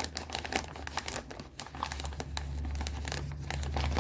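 FedEx shipping pack being crinkled and pulled at by hand as it is worked open, with irregular crackling, over a steady low hum.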